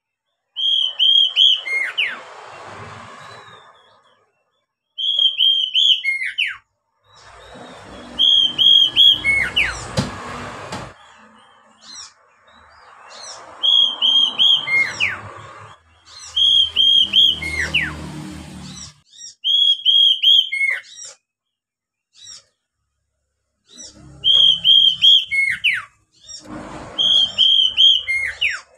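Oriental magpie-robin singing one phrase over and over, about every three seconds: three quick high whistled notes and a falling slur. Most phrases are followed by a rough, noisy stretch of sound.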